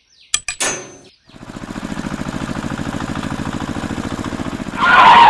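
A small engine starts and runs with a rapid, even putter, preceded by a few sharp clicks. A louder burst near the end cuts off abruptly.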